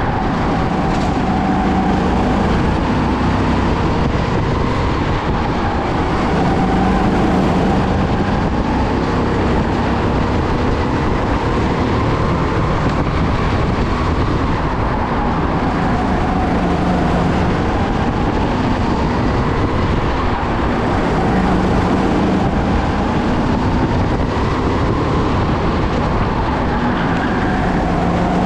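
Racing go-kart's engine heard onboard at speed. Its pitch rises and falls in slow waves every few seconds as it revs up and drops back lap after lap, over a steady noisy rumble.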